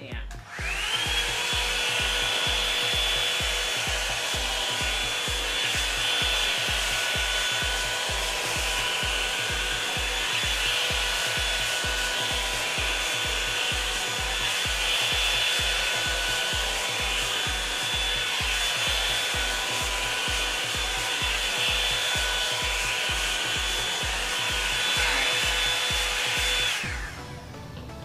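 Revlon One Step paddle-brush hair dryer running: its motor spins up with a quick rising whine about half a second in, then blows steadily with a high whine over the rush of air, and switches off about a second before the end.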